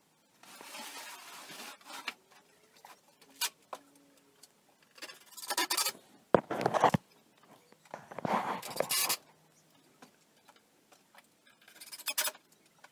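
Cordless drill driving screws into a wooden cabinet frame in about five short bursts, each lasting about a second, with pauses between them.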